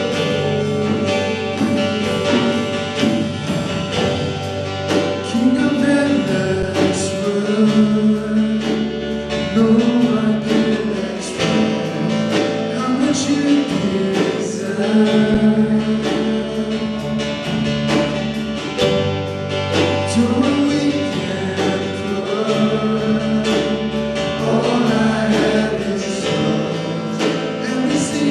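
Worship song being sung to guitar accompaniment, with a sung melody over a steady bass line.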